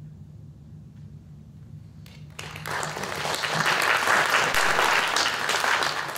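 Low steady hum, then audience applause breaking out suddenly about two and a half seconds in and building to a full, sustained clapping.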